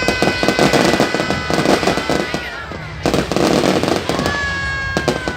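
Fireworks crackling and popping in dense rapid volleys, with a louder burst of crackle about three seconds in. Long steady whistling tones ride over the crackle and slide down in pitch as they end.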